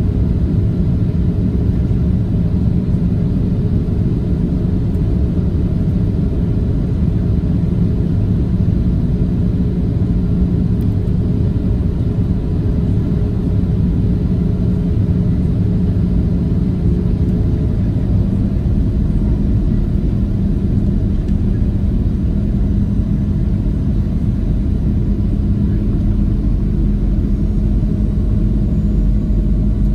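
Cabin noise of a Boeing 737-700 with its CFM56-7 engines running: a steady loud rumble with a low hum. The hum's pitch steps slightly about two-thirds of the way through as the engine setting changes.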